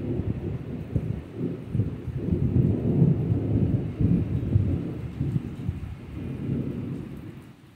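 Rolling thunder rumbling over steady rain, swelling to its loudest in the middle and dying away near the end.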